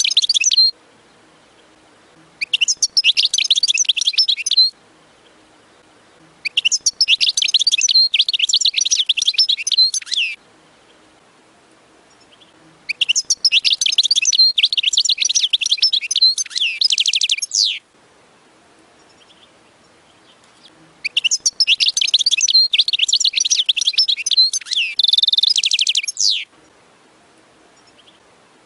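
European goldfinch singing: bouts of rapid, high twittering and chattering, each a few seconds long, separated by short pauses. One bout ends just at the start, and four more follow. The last bout includes a quick, even trill.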